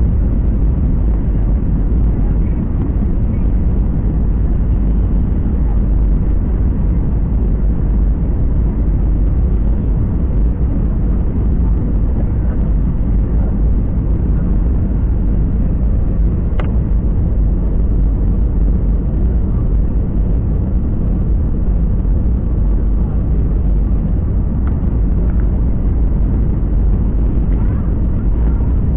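Steady low rumble of a jet airliner heard from inside the passenger cabin, with one brief click about halfway through.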